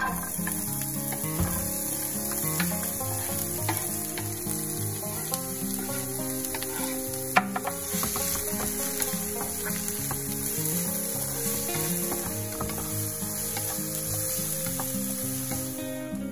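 Diced red onion sizzling as it drops into hot olive oil in a nonstick frying pan, then frying steadily while a wooden spatula stirs it, with small clicks and one sharp knock about seven seconds in.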